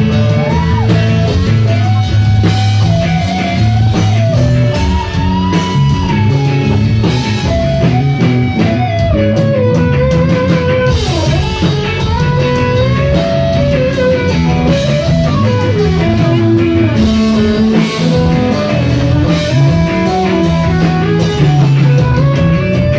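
Rock band playing an instrumental break with no singing: a lead guitar line that bends up and down, over bass and drum kit.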